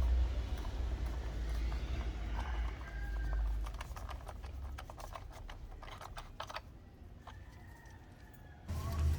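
A run of quick, light clicks and taps about halfway through, over a low rumble that fades out and returns near the end.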